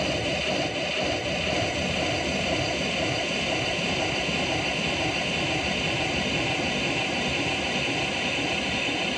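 A steady, dense wash of hissing noise with a few faint held tones in it, a noise passage of an instrumental soundtrack; no beat or clear melody.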